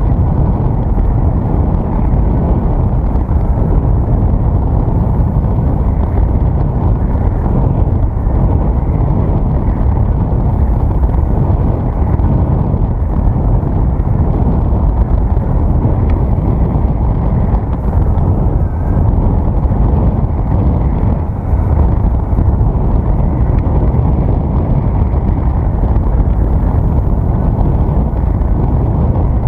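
Steady wind rush and buffeting on the microphone of a camera flying with a paraglider, a loud low rumble with no engine tone in it.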